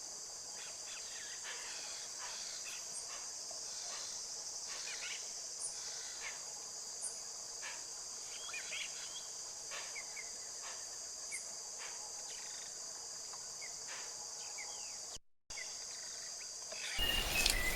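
Steady, high-pitched insect chorus with scattered short chirps over it. It cuts out for a moment near the end, then a louder, busier stretch of the same kind of ambience comes in.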